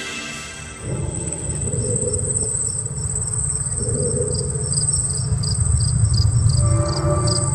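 Cricket-like insect chirping on a light show's loudspeaker soundtrack: a steady high trill with regular chirps about three a second over a low rumbling drone. It comes in about a second in, as the electronic music before it drops away.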